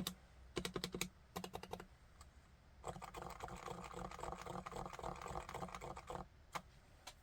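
Typing on a Realforce RC1 keyboard with silent Topre electrostatic capacitive switches (45 g): two short flurries of keystrokes, then a fast continuous run of keypresses for about three seconds, then two single keystrokes near the end. The sound is the muted, quiet stroke of the silenced Topre switches.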